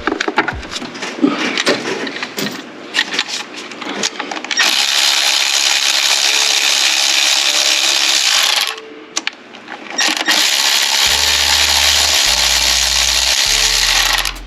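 Metal clicks and clinks of tools and bolts being handled. Then a handheld electric power tool runs steadily for about four seconds, backing out intake bolts. It stops for about a second and runs again to the end.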